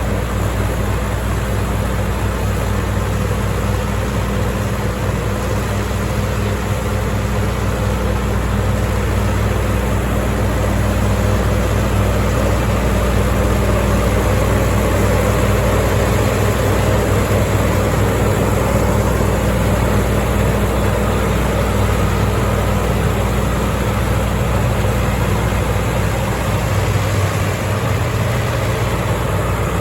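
Combine harvester engine running steadily at a constant speed, with a deep, continuous hum and dense machine noise.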